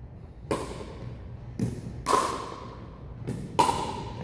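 Pickleball rally: about five sharp pops of paddles hitting the plastic ball and the ball bouncing on a hardwood court, the two loudest near the middle and near the end, each echoing through a large gymnasium.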